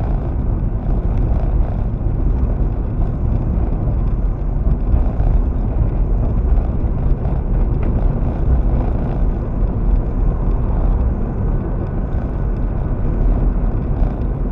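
Steady road and engine noise of a car driving along a paved road, heard from inside the cabin, heaviest at the low end.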